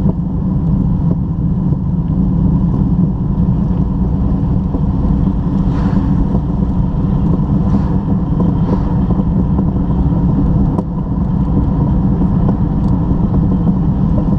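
Car engine and road noise heard from inside the cabin: a steady, deep drone while the car cruises slowly along a narrow road.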